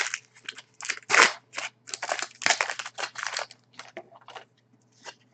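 2008-09 Upper Deck SPx hockey trading cards being handled and flicked through, a quick run of rustles and snaps that thins to scattered clicks after about three and a half seconds.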